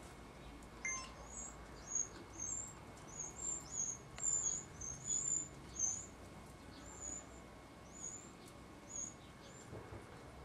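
Small bird chirping: a quick series of short, very high-pitched chirps, two or three a second at their busiest, thinning out to single chirps toward the end.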